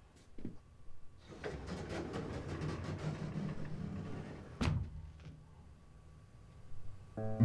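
Elevator doors sliding shut with a low rumble for about three seconds, ending in a single thud as they meet.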